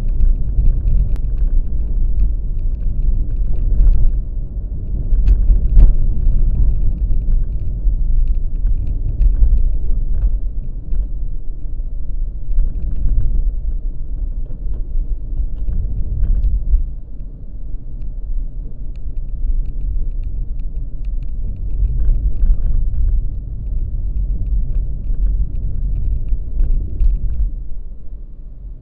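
Low rumble of road and wind noise from a moving vehicle, swelling and easing in level, with faint scattered clicks and knocks.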